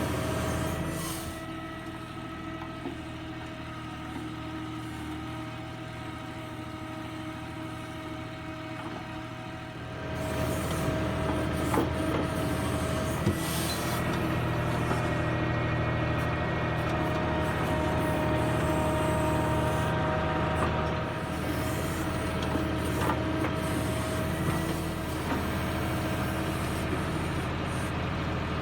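Backhoe loader's diesel engine running steadily, near idle at first, then picking up speed about ten seconds in and staying louder under load, with a few faint knocks.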